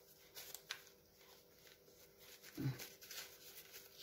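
Faint rustling and soft clicks of paper pages being handled in a handmade paper journal, with a brief low throat sound about two and a half seconds in.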